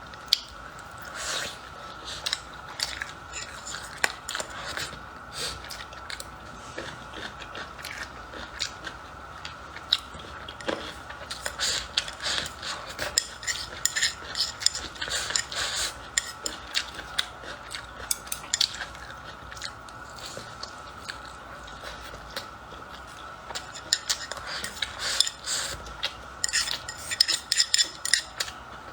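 Close-miked eating sounds: chewing and biting food, with utensils clicking and scraping against a bowl. The clicks come thickest around the middle and again near the end.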